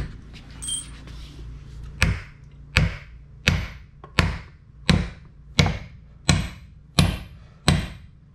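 A hammer driving a concrete anchor through a wooden wall plate into a fresh concrete slab: one knock, then after about two seconds a steady run of about nine evenly spaced blows, a little under one and a half a second, each with a short metallic ring. The anchor is going in easily in the days-old concrete.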